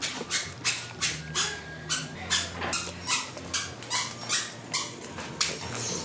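A person chewing grilled snail meat with wet lip-smacking, a quick even rhythm of about three smacks a second.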